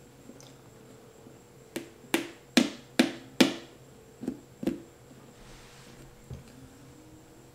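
A quick run of about seven sharp knocks on a heavy leather work boot with a lug sole, struck while it is held sole-up; the middle three are the loudest. A soft thump follows near the end as the boot is set down on a towel.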